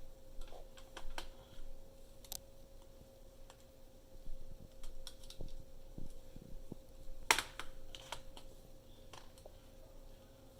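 Scattered light clicks and taps at an uneven pace, with one sharper click about seven seconds in, over a faint steady hum.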